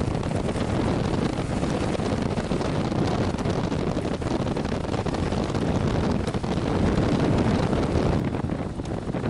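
Wind buffeting a camera microphone on a moving Kawasaki KLR650, over a steady rumble from the bike and its tyres on a dirt track. The hiss thins out about eight seconds in.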